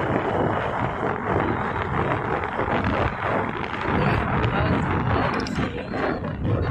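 Wind buffeting the microphone as the camera travels along a road, a loud, rushing, uneven noise with vehicle noise underneath.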